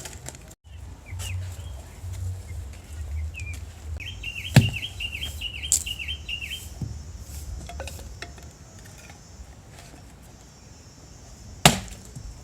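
A small bird chirping, first in scattered single notes and then a quick run of about a dozen short chirps a third of the way in. Two sharp knocks come through, one during the chirping and one near the end, over a steady low rumble.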